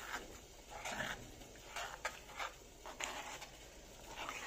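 A spoon stirring quinoa into water in a nonstick pan, making a series of soft scraping swishes against the pan, about one every half second to second.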